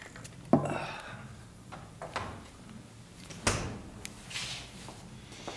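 A refrigerator door shuts with a sharp knock about half a second in. Another knock follows about three seconds later, with light handling and rustling noises between.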